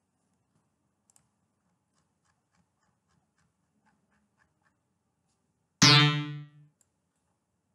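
One bass note from the Fruity DX10 FM synth's 'Bang Bass' preset, sounded as a note is placed in the piano roll: a bright attack that quickly dulls and fades within about a second, near the end. Faint mouse clicks before it.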